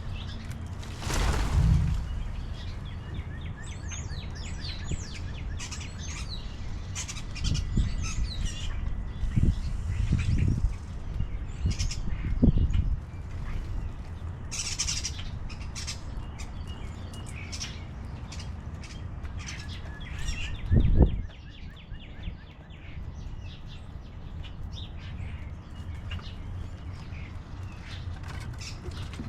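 Small songbirds chirping and calling again and again. Several short low rumbles break in, the loudest at about a second and a half and at about 21 seconds.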